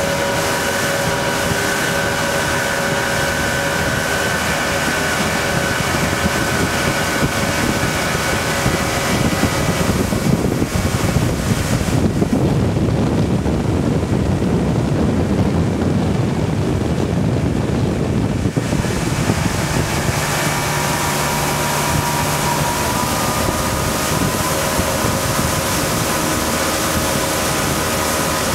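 Tow boat's motor running steadily at speed, with wind on the microphone and the rush of water. For several seconds past the middle, a low wind rumble takes over and the higher sounds drop away.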